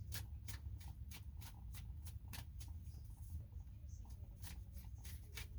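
A deck of tarot cards being shuffled by hand: soft, even card flicks about four a second, pausing briefly a little after halfway before going on, over a faint low hum.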